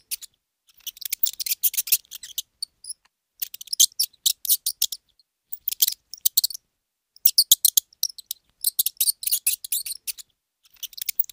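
Young mice squeaking in rapid runs of high-pitched chirps, in repeated bouts of about a second with short pauses between.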